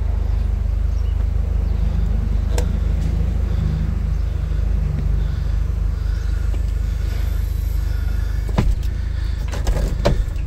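Audi TT roadster's electric soft top closing: a steady low motor hum as the roof swings over. Several sharp clicks and knocks near the end as the roof is latched to the windscreen frame.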